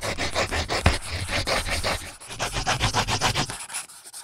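Closing logo sting sound effect: a quick, even run of scratchy strokes over a low rumble. It dips briefly about two seconds in, then cuts off.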